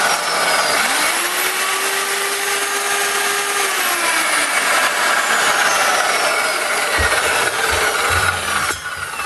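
Circular saw running at full speed with its new 184 mm blade rubbing against the aluminium blade guard and grinding metal away until it clears: a loud, harsh grinding with a whining motor. Near the end the sound drops sharply as the saw is switched off and the blade winds down.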